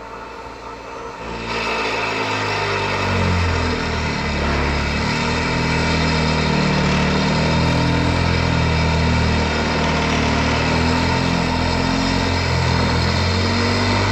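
Excavator-mounted MOVAX vibratory hammer driving a steel AZ14-770 sheet pile into sand, over the excavator's diesel engine. The noise rises about a second and a half in and then holds, a loud hum that wavers in pitch.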